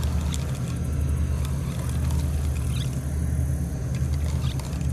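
Steady low engine drone of a towboat pushing barges on the river, running evenly throughout, with faint light ticks over it.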